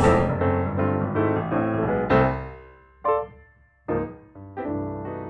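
Piano music. A run of notes fades out about halfway through, followed by one short note and a brief pause; then a loud chord comes in and the playing continues.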